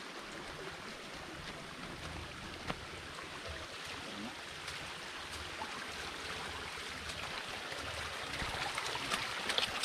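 Small stream of water running steadily, with a single sharp click a little under three seconds in.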